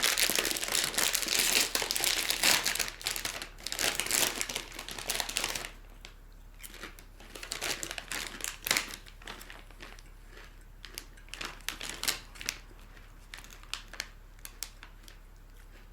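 Plastic potato-chip bag crinkling loudly and continuously as it is opened and handled, then settling into scattered, quieter crinkles after about six seconds.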